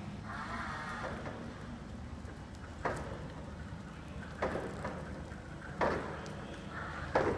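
Electric reach trucks running across a warehouse floor: a steady low hum, broken by four short sharp clunks.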